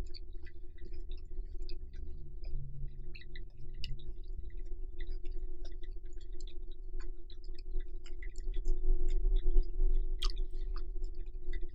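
Close-miked chewing of a lettuce-wrapped bite of grilled pork, with many small wet mouth clicks and crunches at an uneven pace. A steady low hum runs underneath.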